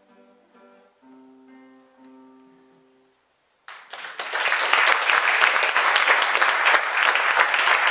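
Classical guitar plucking a few final notes that ring and fade, then after a short pause an audience starts applauding about halfway through and keeps clapping steadily. The applause is much louder than the guitar.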